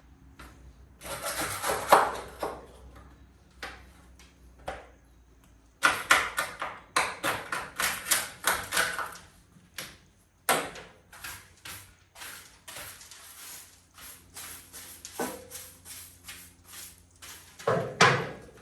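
A brush working across the bus's bare metal floor in quick runs of scratchy strokes, several a second, with short pauses between runs.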